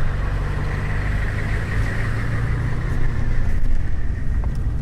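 Car running steadily, a low engine hum with road noise, heard from inside the car.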